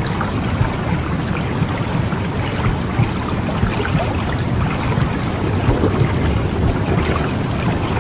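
Womb sound for calming a baby: a steady, loud, low rumbling whoosh like rushing water, with faint crackles through it.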